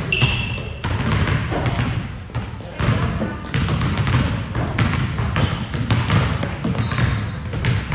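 Basketballs bouncing on a hard gym floor: a busy run of thuds, with a brief high squeak near the start.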